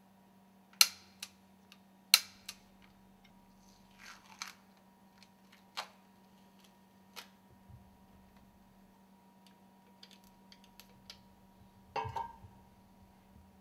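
Sharp metallic clicks of a torque wrench tightening the stuffing box housing bolts: two loud clicks near the start, each followed by a softer one, the click marking the set torque reached. Scattered lighter ticks and clinks of handling follow, with a short clatter of knocks near the end.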